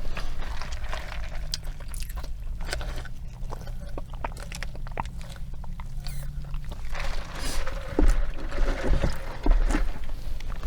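Close-miked mouth sounds of drinking soda: sipping and swallowing, with small wet clicks.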